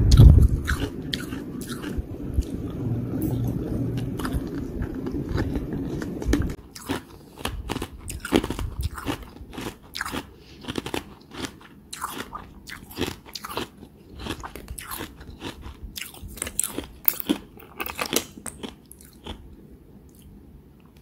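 Close-miked biting, crunching and chewing of carbonated ice. For about the first six seconds there is a dense, low chewing rumble, then separate sharp crunches and crackles that thin out near the end.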